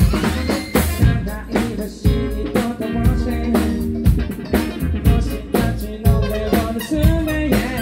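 Funk band playing live: drum kit keeping a steady beat under electric guitar, keyboards and saxophones.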